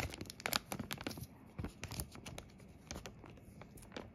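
Thin clear plastic protective film being peeled off a new smartphone and handled, crinkling and crackling irregularly.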